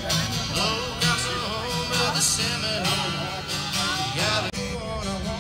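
Live country song: a man singing while strumming an acoustic guitar, amplified through a small PA speaker.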